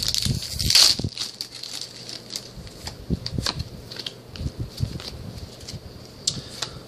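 Foil booster-pack wrapper crinkling, louder just under a second in, then scattered light clicks and rustles of trading cards being handled.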